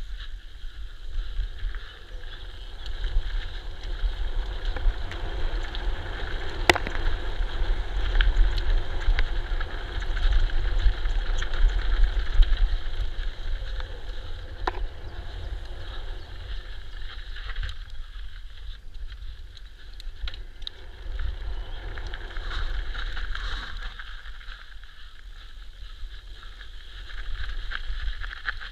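Wind buffeting the action camera's microphone over the rattle and tyre noise of an electric mountain bike ridden fast down a dirt trail, with a sharp knock about seven seconds in and another around fifteen seconds.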